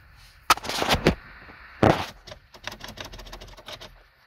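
Mechanical clicks from working a bench-wired car instrument cluster's switches and connections: a sharp click about half a second in, a louder knock near two seconds, then a run of quick light ticks.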